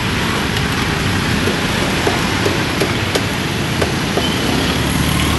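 Steady street-stall background noise: traffic running past, mixed with a hissing, crackling haze, and a few short light clicks and knocks scattered through.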